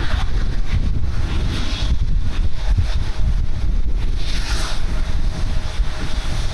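Wind buffeting the microphone, a loud continuous low rumble with brief gusts of hiss.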